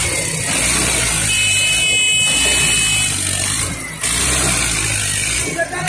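Mahindra Arjun 605 DI tractor's diesel engine running under heavy load, surging and easing off a few times as it strains to pull a loaded trolley stuck in soft soil.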